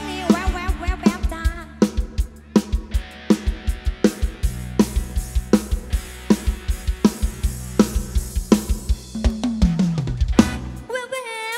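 Instrumental passage of a live lam sing band: a drum kit keeping a steady beat over bass, with bending melodic lead lines above. Near the end the bass and kick drop out for a moment in a break.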